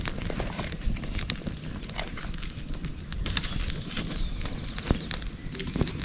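Small wood campfire crackling, with irregular sharp pops and snaps from the burning sticks over a low steady rumble.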